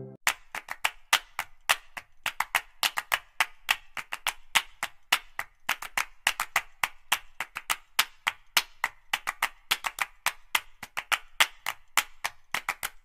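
Graphite pencil scratching on drawing paper in quick short strokes, several a second and irregular.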